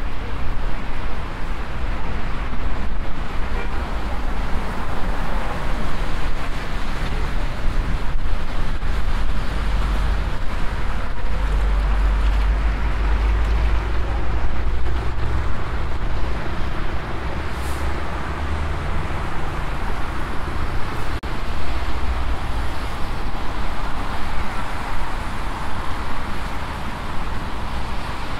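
Steady city road-traffic noise heard from a bicycle on the move, with a low wind rumble on the microphone that swells partway through.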